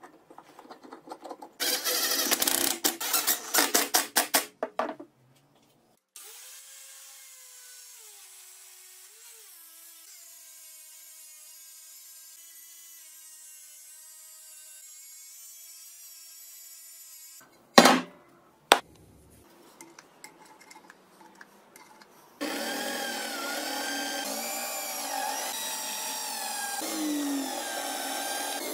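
Workshop power-tool work: a rasping, stroke-by-stroke stretch of cutting or grinding, then an electric drill motor running steadily with its pitch shifting. Two sharp knocks follow, and the drill then runs louder and cuts into the material.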